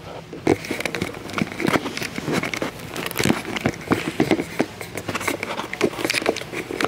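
Dense, irregular crackling and knocking from a hand-held camera being carried while walking: handling noise on the microphone, with footsteps.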